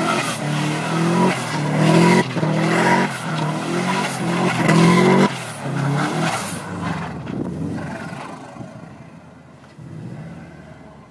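Subaru's boxer engine revving hard in repeated rising surges while the car spins doughnuts in snow. About five seconds in the revs drop, and the engine sound fades as the car pulls away.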